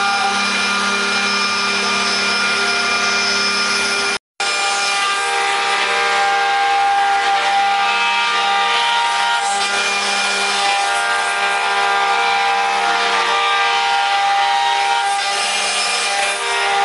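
Multi-spindle 4-axis CNC wood router carving wooden statues: several spindle motors whine steadily over the rasp of the cutters in wood. The sound drops out briefly about four seconds in.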